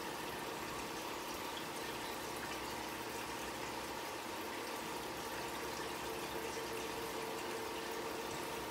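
Steady running-water hiss of a home aquarium's water circulation, with a faint steady hum under it.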